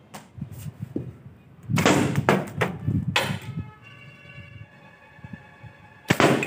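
Homemade slingshot rifle firing glass marbles at a target: sharp snaps and hits, a loud cluster about two seconds in and another just before the end. After the hit near three and a half seconds, something rings with a steady tone for about two seconds.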